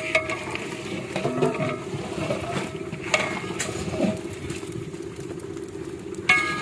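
Long metal ladle scraping and knocking against the inside of a large metal cooking pot as a thick meat curry is stirred, with several sharp clinks and brief metallic rings. A steady low rattling drone runs underneath.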